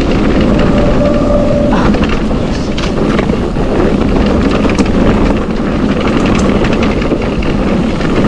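Wind buffeting the camera microphone over the rattle and clatter of a Husqvarna HC8 electric mountain bike riding down a rocky dirt trail, with many sharp knocks as the bike jolts over stones.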